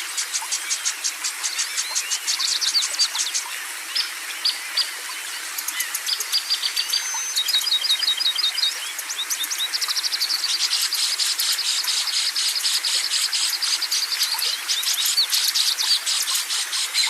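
Songbirds singing: a dense run of rapid, high chirps and short trills, with one long fast trill from about ten seconds in.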